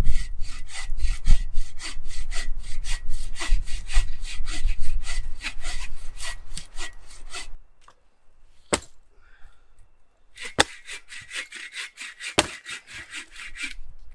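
Hand saw cutting through a dense piece of firewood, quick back-and-forth strokes at about four a second. The sawing stops for a couple of seconds with a few sharp knocks, then starts again for about three seconds.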